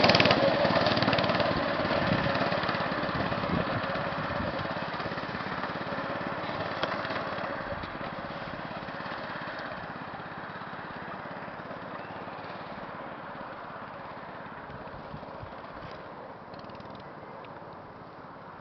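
Homemade go-kart's 6.5 hp single-cylinder four-stroke engine running, fading steadily as the kart drives off into the distance.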